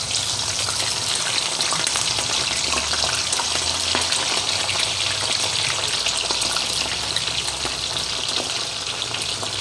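Green eggplant pieces deep-frying in hot oil in a pan: a steady sizzle, with more raw pieces being added to the oil.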